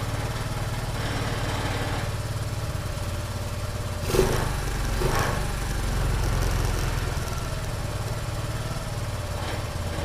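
Stock exhaust of a 2022 Honda Navi's small single-cylinder four-stroke engine idling just after start-up, a steady low putter, briefly louder about four seconds in.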